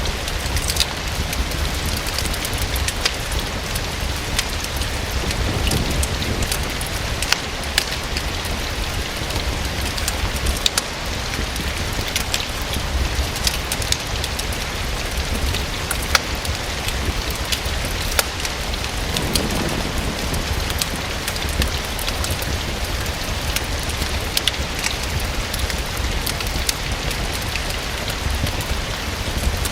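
Steady rain falling against a window, with scattered sharp ticks and a constant low rumble underneath.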